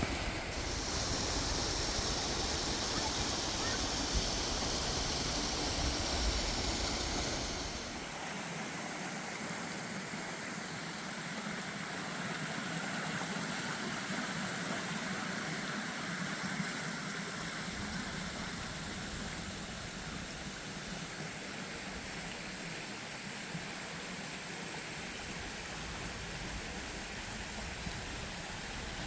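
Steady rushing of a mountain stream, a continuous hiss of water, louder and brighter for about the first eight seconds and then somewhat softer.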